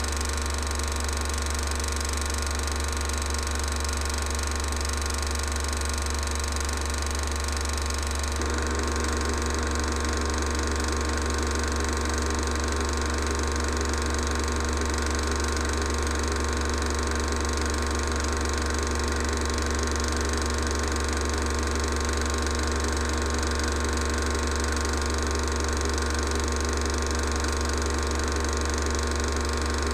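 Film projector running steadily: a constant mechanical whir with a low hum, from the playback of a silent 16mm home movie. It gets slightly louder and harsher about eight seconds in, then holds steady.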